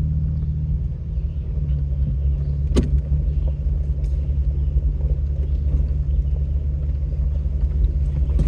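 Off-road truck's engine running at low speed, heard as a steady low drone inside the cab, its pitch dropping slightly about a second in. There is one sharp knock about three seconds in.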